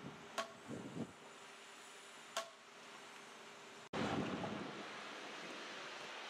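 Construction-site noise: a low rumble of machinery with two sharp metallic clanks, about half a second and two and a half seconds in. After an abrupt cut near four seconds, a louder, steady background noise of the site and wind.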